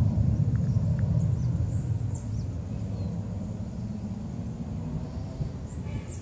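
BAe 146 four-engined jet airliner's engines heard as a low rumble that eases off about two seconds in.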